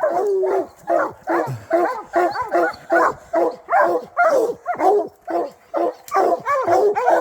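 Bear-hunting hounds barking at a treed bear, steady rapid barks about two to three a second.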